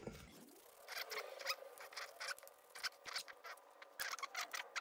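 Quick, irregular little squeaks and scratches from a foam paint roller and a chrome paint marker being worked, as the paint is loaded onto the sponge roller and rolled onto the taped plastic trim.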